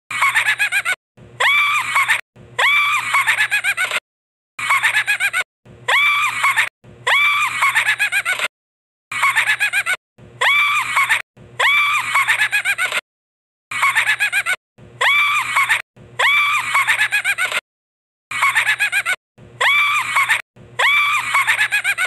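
A high-pitched laugh sound effect looped: the same four-second clip of three laughing bursts with quick ha-ha pulses plays five times, with short silent gaps between repeats.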